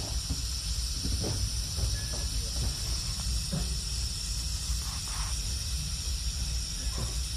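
Electric welding arc on a pipe, a steady hiss with scattered short crackles and pops.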